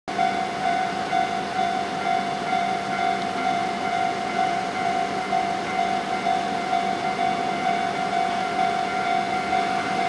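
Japanese level-crossing warning bell ringing steadily, a repeated electronic ding about twice a second.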